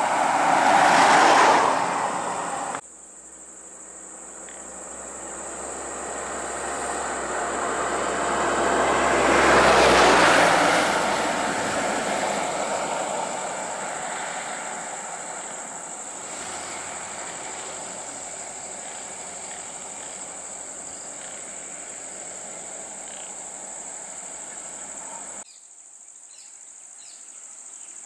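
Road vehicles driving past close by: one loud pass near the start, then another that swells to a peak about ten seconds in and slowly fades. A steady high-pitched insect drone runs underneath.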